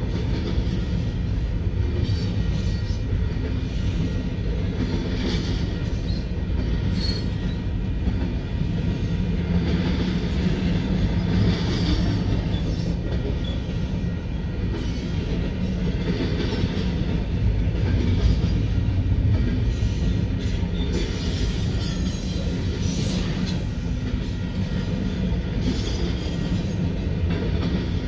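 Double-stack intermodal freight train rolling past: a steady rumble of wheels and cars on the rails, with brief wheel squeals now and then.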